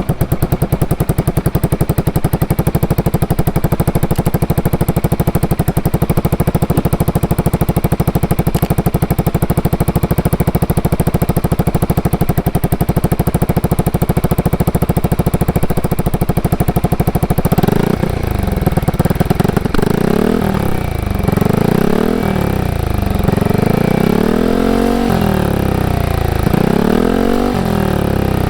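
Yamaha XMAX scooter's single-cylinder four-stroke engine through an aftermarket Aka-style exhaust with titanium header, with the db-killer insert fitted. It idles steadily, then from about two-thirds of the way in is blipped repeatedly, each rev rising and falling about every two seconds.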